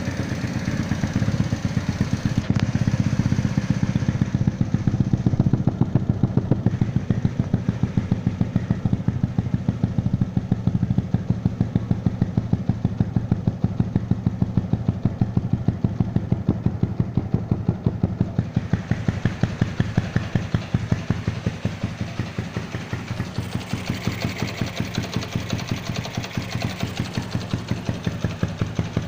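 Modified Honda Wave 100S motorcycle's small single-cylinder four-stroke engine, fitted with an upgraded piston and a performance cam, running near idle with a steady, rapid beat of exhaust pulses.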